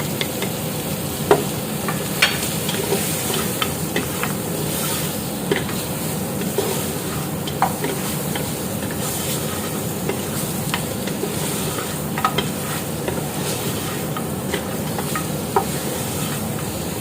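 Mutton sizzling in a little oil in a pressure cooker while being stirred, the spoon scraping and clicking against the metal pot every so often. This is the bhunai stage: the meat is being browned in its own oil and spices.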